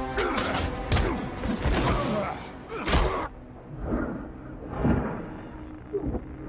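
Film fight sound effects: a run of heavy hits and swishes, with strained grunts from the fighters. The sharper hits come in the first half, and duller thumps follow about once a second.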